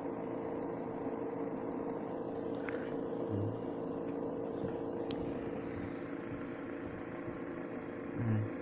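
Steady mechanical background hum holding several fixed pitches, with a couple of faint clicks.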